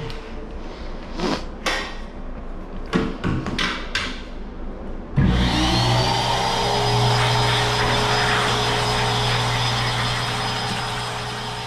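A few light knocks and clicks, then about five seconds in a pet grooming blower switches on; its whine rises briefly as the motor comes up to speed, then it runs steadily.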